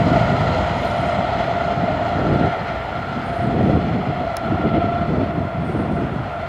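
Express passenger train running by and moving away, its wheels rumbling over the rails and slowly fading, with a steady high-pitched tone over the rumble.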